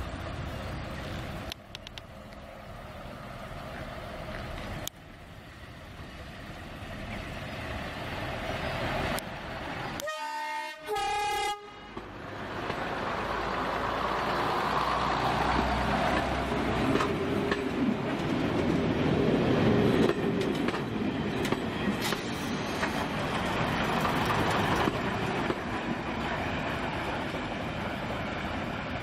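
First-generation diesel multiple unit running at the platform, then sounding its two-tone horn about ten seconds in, a lower note followed by a higher one. It then pulls away, its underfloor diesel engines and wheels on the rails growing louder as it passes.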